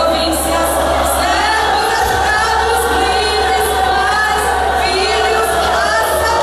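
A woman singing a hymn into a handheld microphone over a PA, in long held notes that glide between pitches, with a steady low hum underneath.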